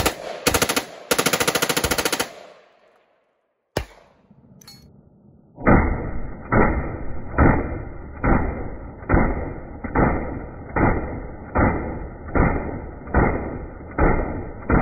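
Full-auto fire from an AR-pattern rifle: a couple of very short bursts and then a longer burst of rapid shots lasting about a second. After a break, an AR-pattern carbine fires steady single shots, about one every 0.8 seconds, sounding duller.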